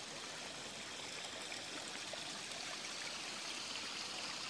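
Steady rushing of flowing water, an even hiss with a few faint ticks in it.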